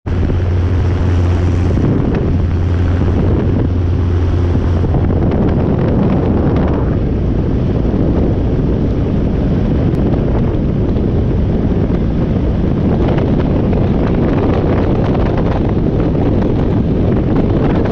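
Heavy wind buffeting on a camera mounted outside a Robinson R22 helicopter in flight, over the helicopter's drone. A steady low hum runs for the first five seconds, with a brief break near two seconds, then fades, leaving mostly wind.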